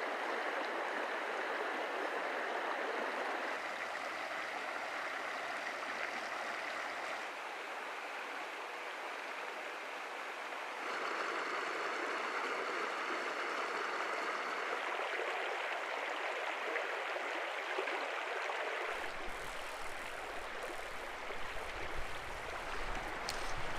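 Shallow mountain creek running over gravel and cobbles: a steady rush of water whose tone shifts a few times, with a low rumble added in the last few seconds.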